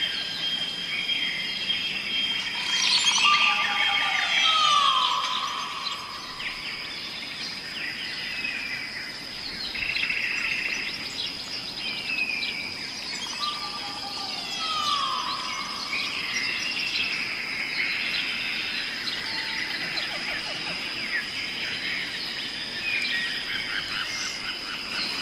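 Several songbirds chirping and trilling together over a steady thin high tone. A falling whistle comes about three seconds in and again about fourteen seconds in.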